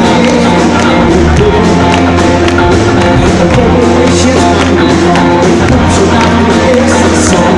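A live pop-rock band plays loud, with electric guitars and a male lead singer.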